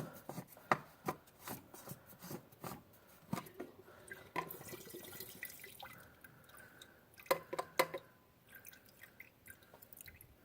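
Irregular clicks and light metal knocks from a 1/2-inch socket working the fuel filter cap loose on a 7.3 diesel, with three quick knocks about seven seconds in, and diesel fuel dripping from the opened filter housing.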